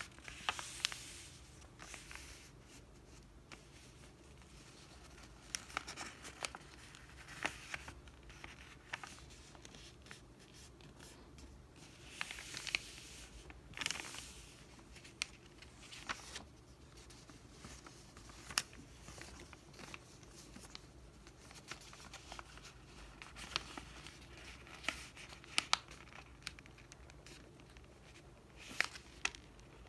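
A sheet of paper being folded into a paper airplane by hand, its creases pressed and smoothed with the fingers: irregular rustling and crinkling with sharp little clicks and scrapes.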